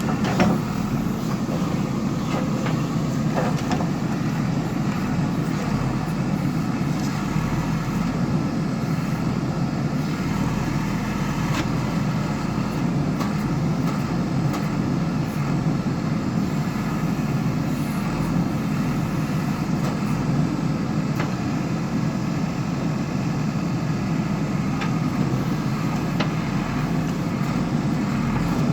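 Diesel engine of a JCB earthmoving machine running steadily, with a few faint clicks and knocks over it.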